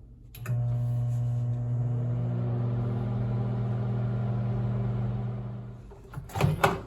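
Microwave oven running while it heats a bowl of water: a steady low electrical hum that starts about half a second in and dies away near the end. Two sharp clicks follow just before the end.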